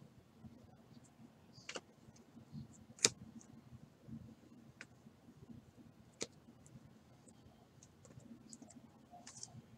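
Faint clicks and taps of trading cards and hard plastic card holders being handled and set down on a table: a few sharp, separate clicks, the loudest about three seconds in.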